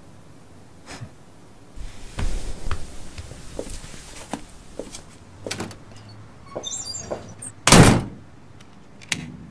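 Footsteps and knocks as an apartment front door is worked, then the door slams shut about three quarters of the way in. The slam is the loudest sound, and a latch clicks about a second after it.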